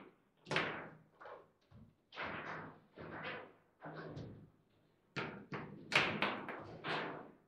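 Foosball table in play: the ball struck by the figures on the rods and the rods knocking against the table, about ten hard knocks and thuds at uneven intervals, the loudest about six seconds in.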